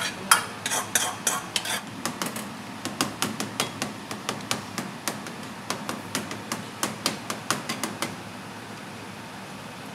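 A metal spoon clinking and scraping against a scalloped aluminium dish as a minced mixture is spread over it, in quick sharp taps of about two or three a second. The tapping stops about eight seconds in, leaving a steady background hum.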